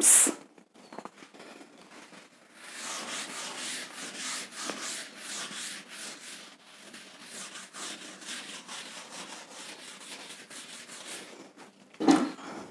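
Chalkboard duster rubbing across a blackboard, wiping off chalk in quick repeated strokes, starting about two seconds in and stopping shortly before the end. A brief louder sound comes near the end.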